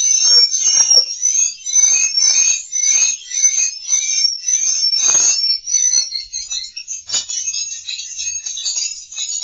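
Swiftlet twittering: loud, high chirps about twice a second, breaking into a denser, jumbled chatter about six and a half seconds in. This is the kind of swiftlet call sound played in a swiftlet house to lure the birds in to roost.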